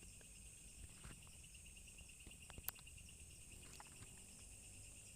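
Faint, steady chorus of night insects such as crickets, with one sharp click a little past halfway.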